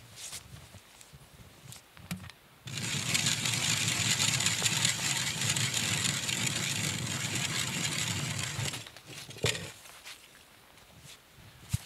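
Ice auger boring through lake ice: a steady grinding scrape of the blades cutting ice, starting about three seconds in and stopping about six seconds later. A couple of short sharp knocks follow near the end.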